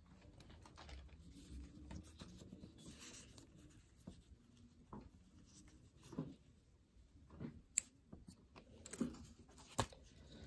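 Faint handling of a satin ribbon, with a few sharp clicks in the second half from small metal scissors snipping the sewing thread and being set down.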